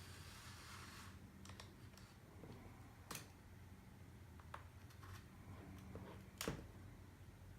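Faint handling of a vinyl record and its packaging: a brief rustle, then scattered light clicks and taps, the sharpest about six and a half seconds in, over a low steady hum.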